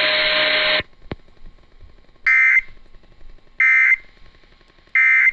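A steady radio hiss cuts off under a second in. Then come three short, identical EAS end-of-message data bursts, harsh buzzy chirps about 1.4 s apart, which mark the end of the weather radio alert.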